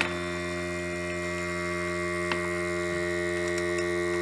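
Luvoco capsule coffee machine's pump humming steadily as it brews a filter coffee.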